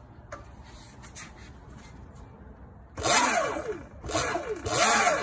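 Segway X160 electric dirt bike's motor, run by a newly fitted ASI BAC8000 controller, whining as the throttle is given in short blips. The whine starts about three seconds in, rising and falling in pitch with each blip, a few times in a row.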